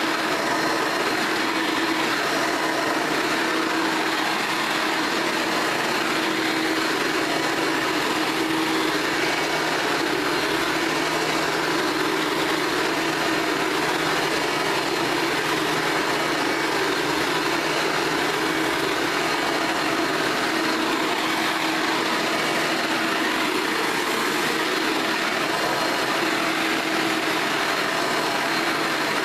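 A 1986–87 Hoover Elite bagged upright vacuum cleaner running steadily: an even hiss with a constant hum that does not change in pitch or loudness.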